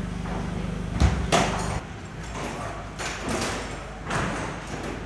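Two loud thuds about a second in, typical of heavy plastic equipment cases being set down and stacked, over a steady low machine hum that stops just under two seconds in. After that come a few softer rustles and knocks.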